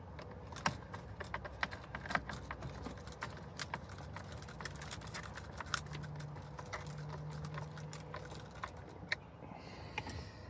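Irregular light clicks and rattles of hand work as screws are fitted back into the plastic steering column covers, with a low hum for a couple of seconds past the middle.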